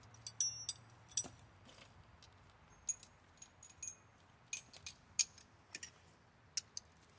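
Metal hand tools clinking and clicking as they are handled: a ringing metallic clink about half a second in, a sharp knock just after a second, then scattered light clicks and taps.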